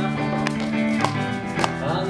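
Instrumental music with a steady beat about twice a second under held chords.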